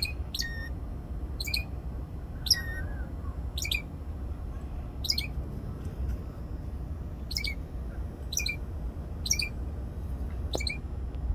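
A songbird calling a short, sharp, high note over and over, about once a second, each note dropping quickly in pitch.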